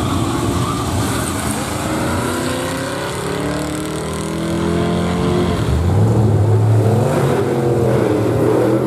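A Ford Crown Victoria and another sedan accelerate hard side by side in a drag race from the launch. The engine note climbs in steps as they shift up. About six seconds in, a louder, lower engine sound takes over and wavers in pitch.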